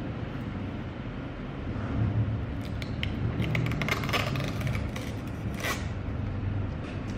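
Clear plastic protective film being peeled off the glossy lid of a Phomemo M220 thermal label printer: small crackles and ticks start a couple of seconds in and end in a louder crinkling pull near the end, over a low steady hum.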